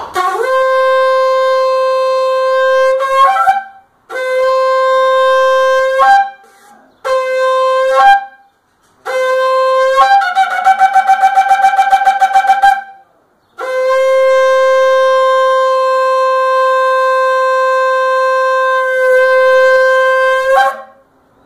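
A waterbuck antelope-horn shofar blown in a series of blasts on one steady, brassy note: a long blast, two shorter ones, then a rapid warbling trill on a higher note about ten seconds in, and a final blast held for about seven seconds. Several blasts end with a brief jump up to a higher note.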